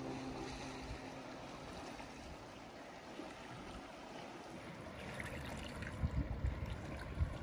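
Calm seawater lapping, a soft steady wash that turns into closer, low sloshing about six seconds in.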